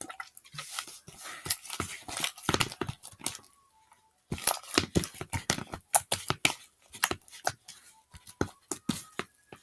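Hands squeezing and kneading sticky homemade slime in a plastic bowl: a fast run of wet clicks and pops, with a short lull about four seconds in.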